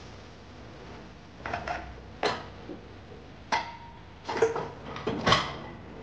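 Steel pots, pans and lids clanking against each other and the dishwasher's wire rack as they are loaded, a handful of separate knocks with one pan ringing briefly about halfway through.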